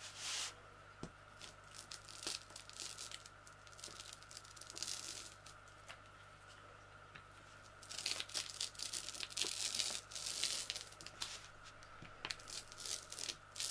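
Sticky lint roller rolled across a diamond painting, its adhesive sheet peeling off the resin beads with a crackly tearing sound in several passes, strongest about eight to ten seconds in.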